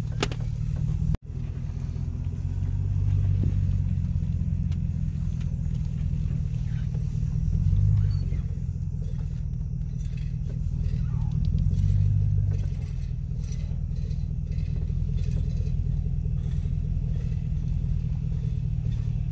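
Pickup truck's engine and road rumble heard from inside the cab as it moves slowly. The steady low rumble swells briefly three times as the truck picks up speed. The sound cuts out for an instant about a second in.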